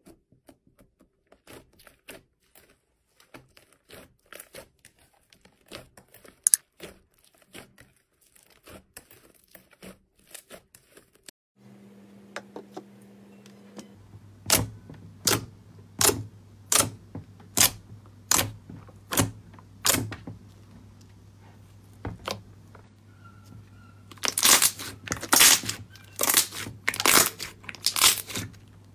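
Hands pressing and poking glossy slime, giving a run of small sticky clicks and pops. After a cut, a thicker slime is pressed in steady strokes about once every second, then kneaded hard with a dense run of louder crackling pops near the end, over a faint low hum.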